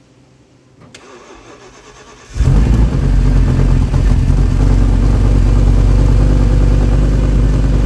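Audi S6's 5.2-litre V10 cranking briefly, catching about two seconds in and then running steadily at idle; a start after the car has stood for months.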